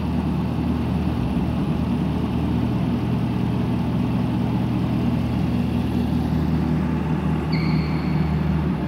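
Supercharged 6.2-litre LT4 V8 of a 2017 Chevrolet Camaro ZL1 idling steadily, heard from the open engine bay.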